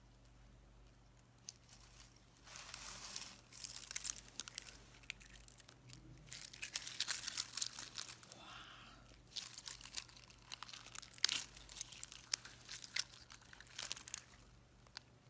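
Slime being squeezed and worked by hand, making several bouts of dense crackling and clicking, each a second or two long, with short pauses between them.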